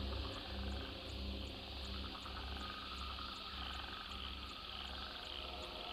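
Prehistoric-jungle ambience of insects and frogs: a steady shrill buzz with regular high chirps about three times a second, over a low pulsing throb.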